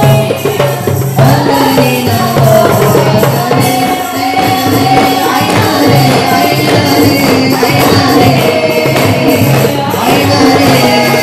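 A hand-drum ensemble of rebana frame drums and painted goblet drums beating a steady rhythm, with voices singing a melody over it.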